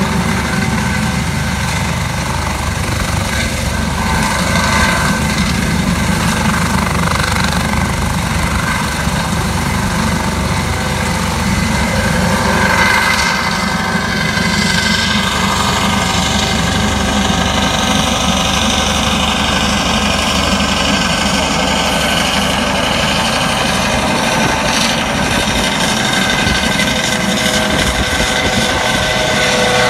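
Airbus AS365 Dauphin helicopter lifting off and climbing overhead: loud, steady rotor chop under the high whine of its twin turbine engines and Fenestron ducted tail fan.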